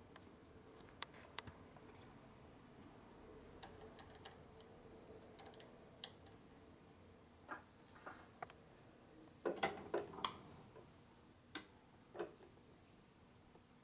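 Scattered light clicks and taps of small tooling being handled and fitted into a milling machine's drill chuck, with a short cluster of louder clicks about ten seconds in.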